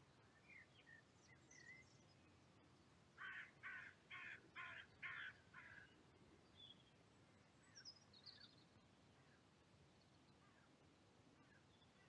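A crow cawing six times in quick succession, about two caws a second, with faint small-bird chirps around it.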